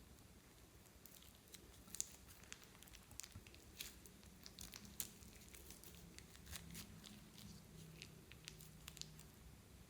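Clear slime and plastic piping bags being handled: faint, scattered crinkles and sharp little clicks, sometimes several a second, with the loudest about two and five seconds in.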